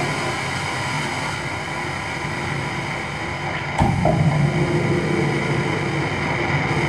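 Live electronic noise music from a table of cabled electronics and effects: a dense, steady drone with many held tones and a rumbling low end. About four seconds in there is a sudden jolt, and the low rumble is louder after it.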